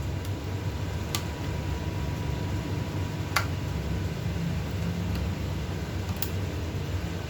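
Steady low hum of a fan or air conditioner running, with a few faint, sharp clicks about a second, three and a half seconds and six seconds in, from small parts being handled as a seal is worked off a drone gimbal.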